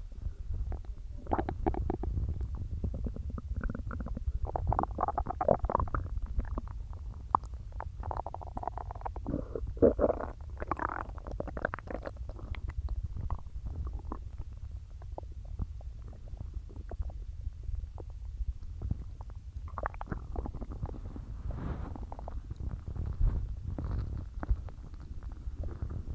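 Human stomach gurgling over a constant low rumble, with clusters of bubbly gurgles. The gurgles are busy in the first half, thin out, then pick up again near the end. They are the sound of soda and swallowed air moving through an otherwise empty stomach.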